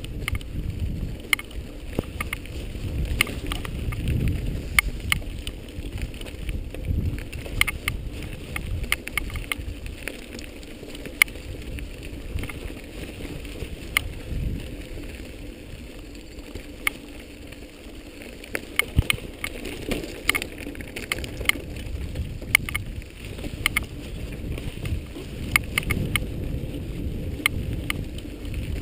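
Action camera moving along a rough dirt trail: a steady low rumble of wind and movement, with irregular sharp clicks and rattles throughout.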